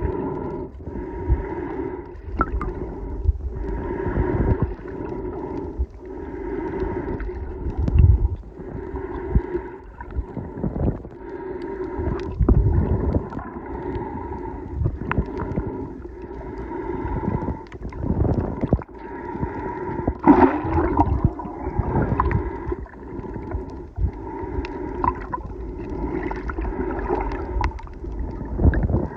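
Muffled underwater noise picked up by a camera held below the surface: water moving against the housing, with a hum that swells and fades about once a second and a few low thumps.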